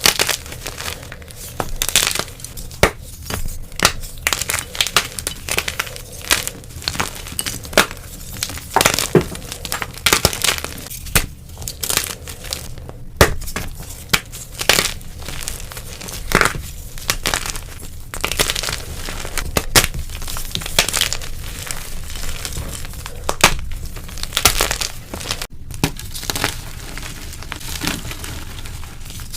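Blocks of dyed gym chalk being crushed and crumbled close to the microphone: a continuous run of dry, crisp crunches and crackles, irregular and closely spaced.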